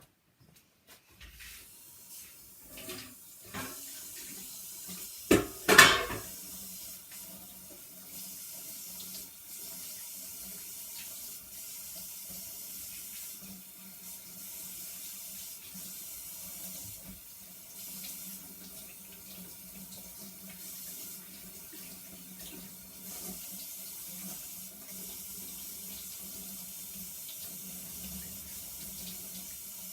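A few knocks and a loud clunk about six seconds in, then a kitchen tap running steadily into the sink.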